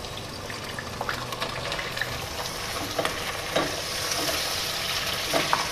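Raw chicken pieces sizzling in hot oil with browned onions in a pot, the frying hiss growing louder as they heat. A spoon stirring them knocks and clicks against the pot several times.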